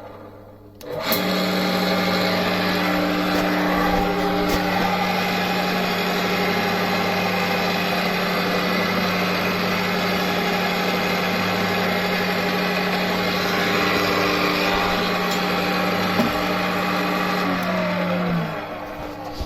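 Arboga Maskiner pillar drill running: its electric motor and spindle drive start about a second in, run at a steady pitch, and wind down near the end.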